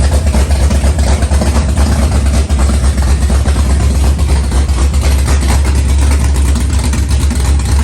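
Large vehicle engine idling with a deep, steady, pulsing rumble.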